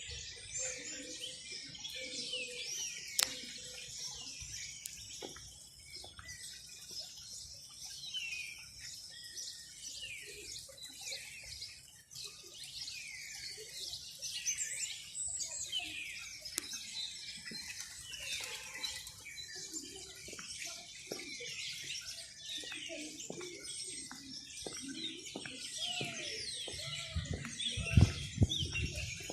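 A flock of small birds chirping and twittering together, a dense, unbroken chorus of quick high chirps. A few low thumps sound near the end, the loudest just before it ends.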